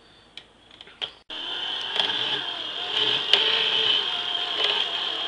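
Electric can opener's motor switching on about a second in and then running steadily as it turns a large 6.6-pound can. The whine wavers a little under the load.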